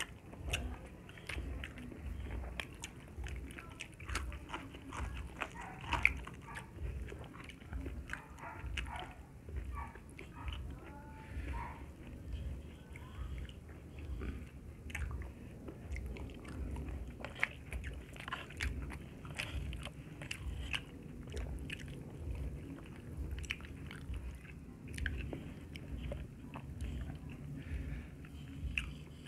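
Close-up chewing sounds of people eating pork and rice with their hands: steady rhythmic chewing with wet mouth clicks and smacks.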